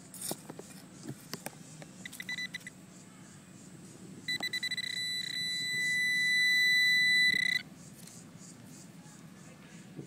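Garrett Pro-Pointer pinpointer beeping on a buried coin. A short pulsing beep comes about two seconds in, then a steady high tone lasts about three seconds, growing louder as the probe closes on the target. A few soft knocks of digging in soil come before it.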